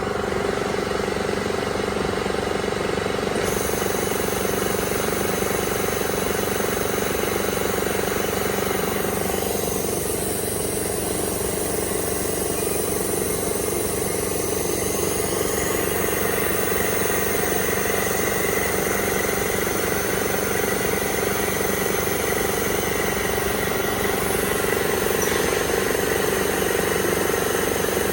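Imet Sirio 370 AF-E automatic metal-cutting circular saw running with a steady mechanical hum and a constant drone.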